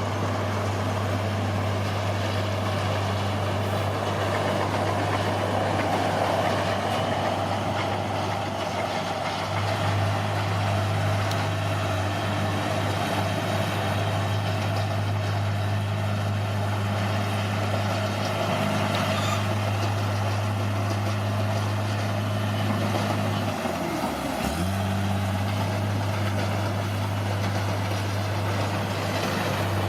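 Bulldozer's diesel engine running with a steady low drone. About three quarters of the way through, its pitch dips sharply for about a second, then comes back up.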